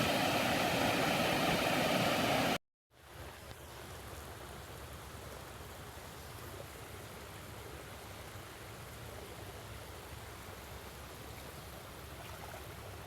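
A loud steady noise that cuts off abruptly about two and a half seconds in. It is followed by the steady rush of flowing river water.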